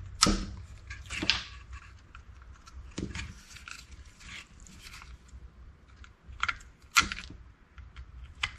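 Sharp plastic snaps and clicks from the retaining tabs of a Dodge Hemi PCM harness connector (C130) being broken off so that the connector will come apart. There are sharp snaps near the start, about a second in, around three seconds in and around seven seconds in, with smaller clicks between them.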